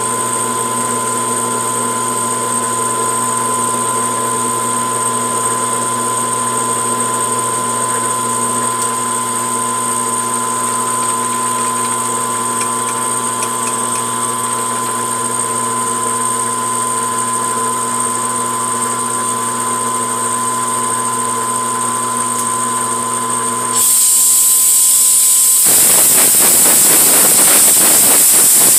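Grizzly G4003G gunsmithing lathe running steadily during single-point threading, with a constant gear whine. Near the end a loud steady hiss starts and covers it.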